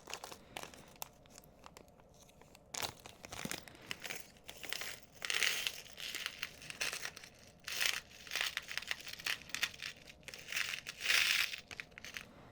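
Plastic zip-lock bag crinkling as it is handled, in irregular bursts with small clicks and taps, loudest about five seconds in and again near the end.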